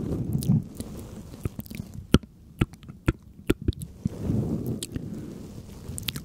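Close-up ASMR mouth sounds: a run of sharp, wet clicks and smacks in the middle, between low, muffled stretches of squishing.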